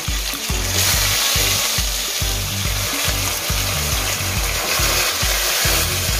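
Oxtail pieces sizzling loudly in very hot oil as they are laid in with tongs to sear, the sizzle swelling about a second in. A bass beat of background music runs underneath.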